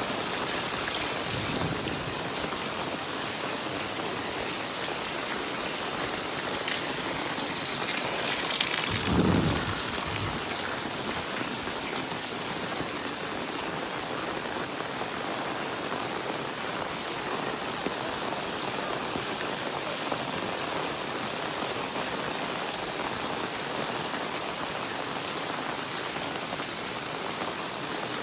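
Steady monsoon rain falling and pattering on surfaces. About nine seconds in, a brief louder low rumble rises over it.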